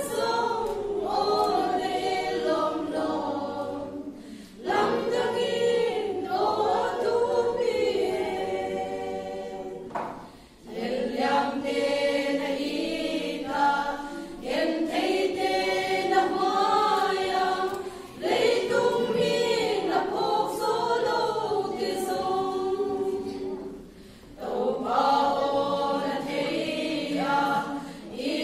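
Women's choir singing a hymn unaccompanied, in long phrases with short pauses for breath between them.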